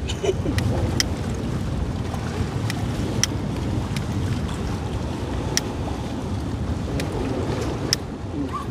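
Sea breeze buffeting the microphone in a steady low rumble, with a few sharp clicks scattered through it.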